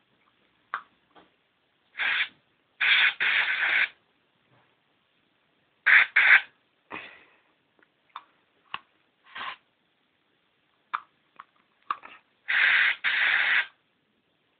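Aerosol deodorant can sprayed in a series of short hissing bursts, several in quick pairs, with a few small clicks between; the can is nearly empty.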